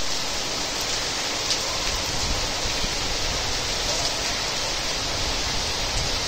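Heavy rain pouring onto a flooded street and puddles, a steady hiss.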